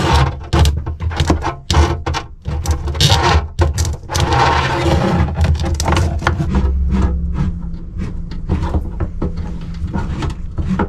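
Braided flexible gas hose being handled and pushed through a narrow cabinet shaft: repeated knocks, clatter and scraping against the wooden panels, with a low steady hum underneath in the second half.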